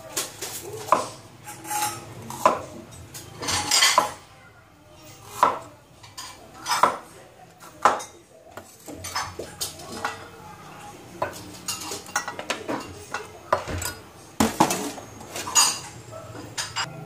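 Cleaver chopping bitter gourd on a wooden chopping board: irregular knocks of the blade through the gourd onto the board, roughly one a second with short pauses, and a few longer scraping sounds.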